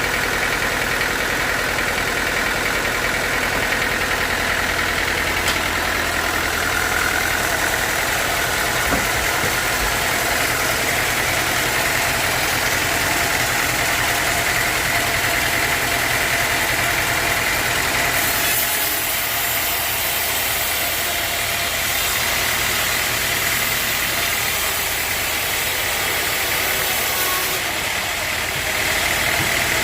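Sawmill machinery running steadily, a continuous motor drone with a steady whine; about two-thirds of the way in the low rumble drops away and a brighter hiss takes over.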